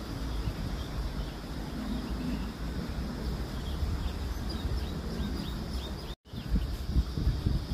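Outdoor ambience: a low rumble with a steady high drone, and faint chirps of small birds. The sound cuts out for a moment about six seconds in.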